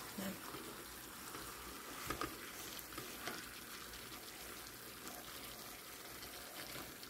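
Milkfish and vegetables cooking in a pot with a steady faint hiss, while a wooden spatula stirs them, scraping and knocking against the pot a few times.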